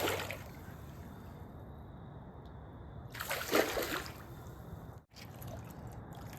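A hooked channel catfish thrashing at the water's surface, splashing in two short bursts: one right at the start and another about three seconds in.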